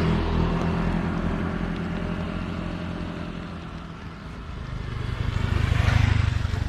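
A motor vehicle's engine running. It fades over the first four seconds, then grows louder again around five to six seconds in.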